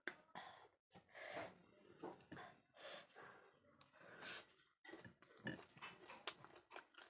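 Close mouth sounds of eating: soft chewing, lip smacks and wet clicks, with breathing in between.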